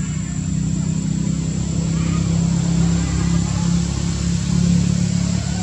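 A motor engine running steadily, a loud low hum, with a thin steady high-pitched tone over it.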